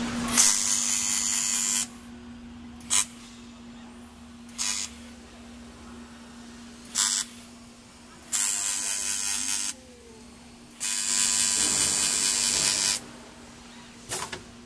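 Automatic air-damper frame welding machine running its cycle. A steady hum runs under three loud hissing stretches of one and a half to two seconds each, one near the start and two in the second half, and four short sharp hisses in between.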